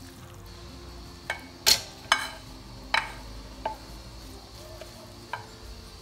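Wooden spoon stirring a moist seafood-and-vegetable filling in a glass bowl, with a soft scraping underneath and about six sharp knocks of the spoon against the glass, the loudest about two seconds in.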